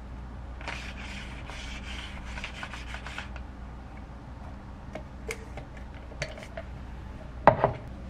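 Sticky lint roller in use: a rapid run of rasping, tearing strokes for about three seconds, as an adhesive sheet is pulled off the roll. Then come a few light clicks and a sharp thump near the end, the loudest sound.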